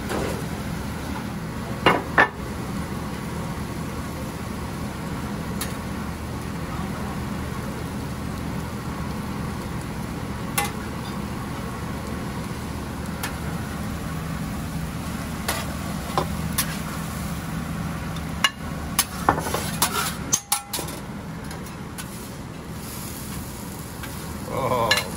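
Veggie omelet and home fries sizzling in butter on a commercial flat-top griddle, over a steady low hum. Sharp scrapes and clicks of a metal spatula on the griddle and plate break in now and then, most of them about three-quarters of the way through.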